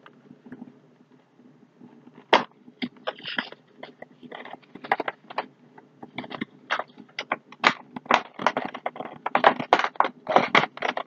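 Cardboard and plastic window box of a toy figure being handled and opened: crackling and crunching of the packaging that starts about two seconds in and grows busier toward the end.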